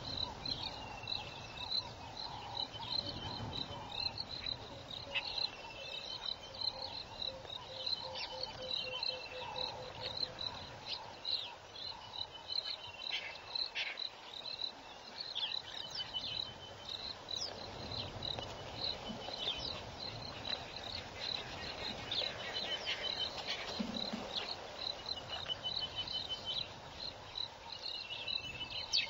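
Bush night-insect chorus: a high chirp repeating about twice a second, with short trilling phrases and scattered bird-like calls over a soft background hiss.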